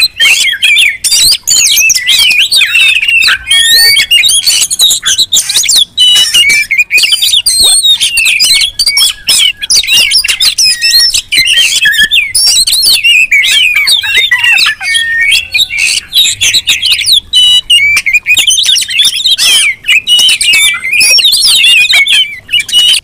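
Many oriental magpie-robins (kacer) singing and calling over one another without a break: loud, fast whistles, warbles and harsh notes. It is the agitated, combative song of birds worked up against rivals.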